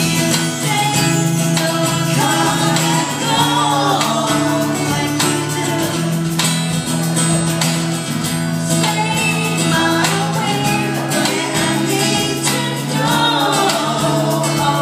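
Live acoustic band: a woman sings into a microphone over strummed acoustic guitar accompaniment, continuously throughout.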